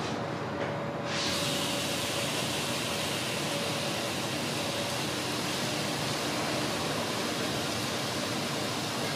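Steak sizzling on a hot grill: a steady sizzle that starts suddenly about a second in as the meat meets the heat.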